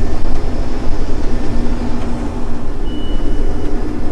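Combine harvester running while cutting soybeans, heard from inside the cab as a loud, steady drone with a steady low hum. A short high beep sounds about three seconds in.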